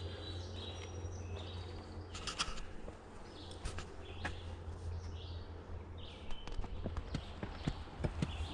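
Footsteps of people walking a woodland trail, starting about six seconds in and going at about three short knocks a second. Small birds chirp in the first half.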